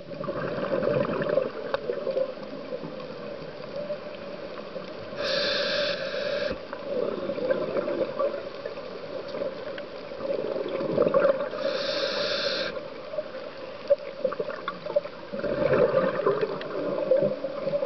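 Scuba regulator breathing heard underwater. Twice there is an inhalation, a hissing rush lasting about a second. Between them, exhaled bubbles come out in gurgling bursts.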